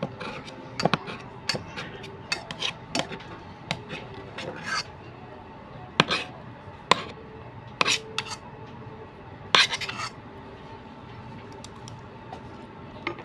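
Metal spoon clinking and scraping against a stainless steel bowl of rice while scooping mouthfuls: a run of sharp, irregular clinks that mostly stop about ten seconds in.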